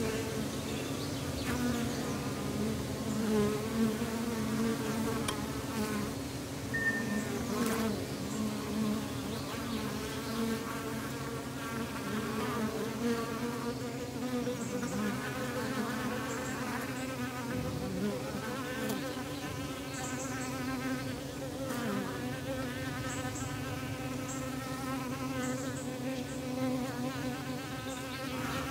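Honey bees buzzing from an opened hive: a steady, dense hum of many bees with wavering pitches. A few light knocks come through it.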